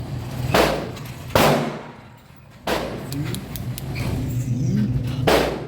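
Four handgun shots at irregular intervals, each cracking sharply and ringing on briefly in the range; the last comes near the end.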